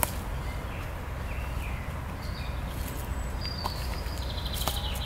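Small birds chirping, with a fast high trill in the last couple of seconds, over a steady low rumble. A few light clicks come from handling the slackline's slow-release webbing and hardware, one at the very start and a couple more near the end.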